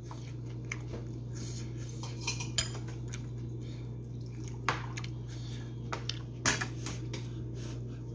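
Metal spoon scraping and clinking against a nonstick pan while scooping fried rice: scattered sharp clinks, the loudest about four and a half and six and a half seconds in, over a steady low hum.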